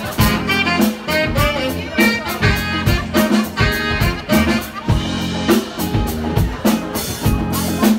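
Live band playing a yacht-rock song: a saxophone carries the melody over a drum kit keeping a steady beat, with electric guitars and keyboard.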